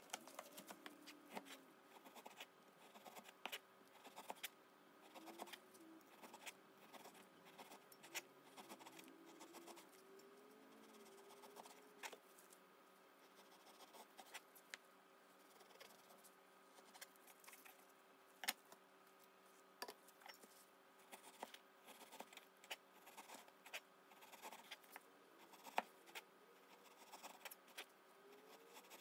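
Cleaver slicing partly frozen pork on a plastic cutting board: faint, irregular clicks and taps as the blade meets the board, over a faint steady hum.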